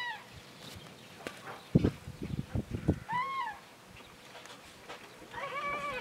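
Cranes calling across the field: short rising-and-falling calls, one at the start, one about three seconds in and a longer one near the end with several voices overlapping. A few loud low thumps come between about two and three seconds in.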